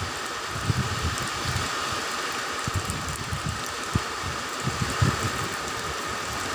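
Heavy rain falling in strong wind, with gusts buffeting the microphone in irregular low rumbles and a few sharp knocks.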